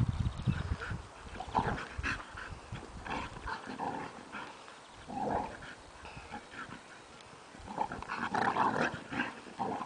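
American Staffordshire terriers play-fighting, with short irregular growls and yelps coming in bursts, the loudest run about eight to nine seconds in.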